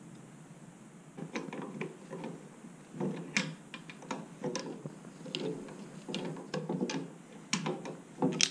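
Pliers clicking and scraping on the sleeve, nut and eyelet as they are screwed back onto the bottom end of an anchor pole. The clicks come in short bursts, starting about a second in, with the sharpest near the end.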